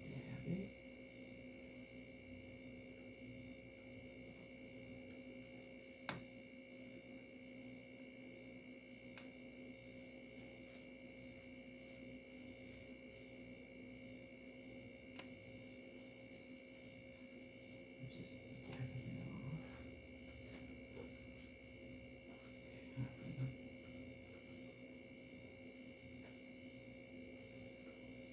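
Quiet room with a steady electrical hum made of several constant tones, one high and whining. A single sharp click about six seconds in and a few faint brief low sounds later on.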